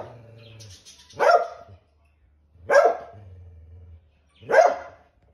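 Kelpie barking three times, about a second and a half apart, with low growling between the barks, as it guards its bone from another dog.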